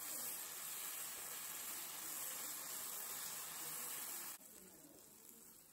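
Faint, steady sizzling of chicken pieces frying in oil and tomato sauce in a nonstick pan. It cuts off abruptly about four seconds in, leaving near silence.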